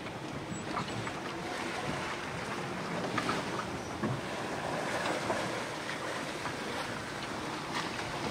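Sea water rushing and fizzing along a sailboat's hull as it sails downwind in the trade winds, with wind buffeting the microphone. A steady wash with small crackles of spray throughout.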